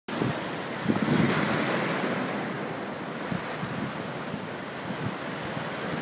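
Sea surf washing and breaking over shoreline rocks, swelling about a second in, with wind buffeting the microphone.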